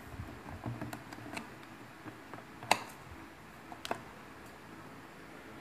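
Light clicks and taps from handling a phone's cardboard box and packaging. A few faint ones come first, then two sharper clicks about a second apart near the middle.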